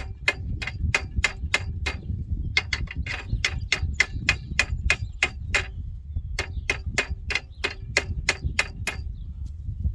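Hammer blows on steel parts of a disc tiller, about three a second in three runs with short pauses between, each strike ringing briefly; the kind of hammering used to knock a rusted bolt head or part loose.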